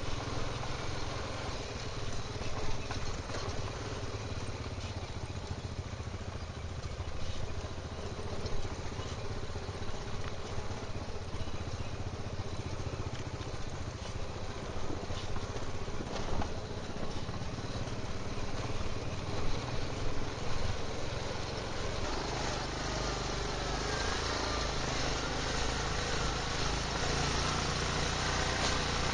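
Quad bike (ATV) engine running steadily under way on a rough trail, with scattered knocks and rattles as it rolls over the rocks. About three quarters of the way through the sound changes abruptly to a louder engine note with a stronger low rumble.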